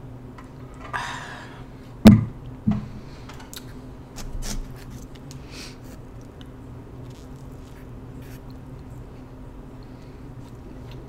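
A short slurp through a drinking straw about a second in, then two sharp knocks, the loudest sounds. These are followed by scattered mouth clicks and soft chewing of pan pizza close to the microphone, over a steady low hum.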